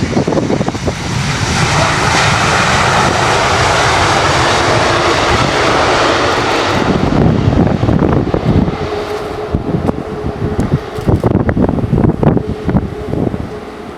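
Airbus A330-900neo's Rolls-Royce Trent 7000 jet engines running loud and steady for about the first seven seconds, then wind buffeting the microphone in gusts over the fading engine noise.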